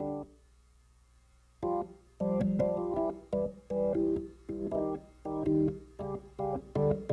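Organ playing short, staccato chords in a syncopated rhythm. The chords break off just after the start, leaving about a second and a half of near silence, then come back busy and clipped.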